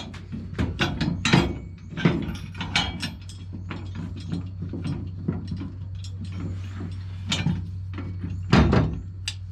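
Steel parts of a lawnmower/ATV jack clicking and clanking as they are handled and fitted together, over a steady low hum, with a heavier knock near the end.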